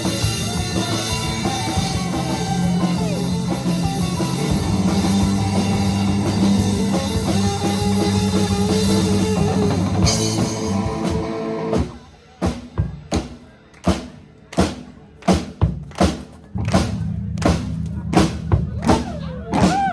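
Live rock band playing an instrumental break: drums, bass and guitar together, then about twelve seconds in everything drops out except a steady drum beat, with the bass and guitar coming back in a few seconds later.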